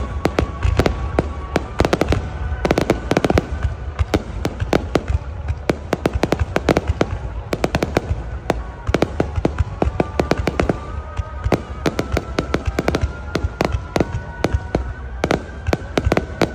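Fireworks display: a continuous barrage of aerial shells and comets bursting, a rapid, uneven string of sharp bangs and crackles several times a second over a low rumble.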